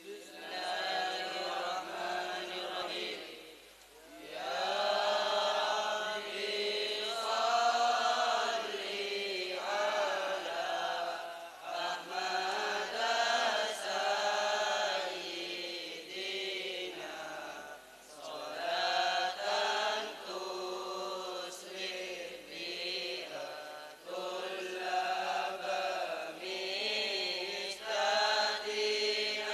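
A group of boys chanting Madurese syi'ir verses in unison, in long melodic phrases with brief pauses between lines.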